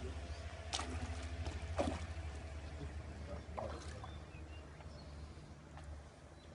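A few short splashes on the water surface, the loudest about two seconds in, as a casting lure is worked across the water of a reservoir. A steady low rumble runs underneath.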